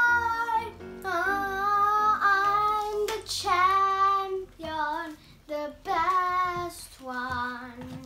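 A young girl singing loudly in long held notes that slide slightly in pitch, with short breaks between them.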